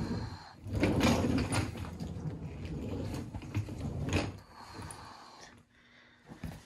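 Suitcase rolling across a wooden floor on its newly replaced wheels. A rolling noise is loudest for about three and a half seconds, then fades, with a couple of small knocks near the end.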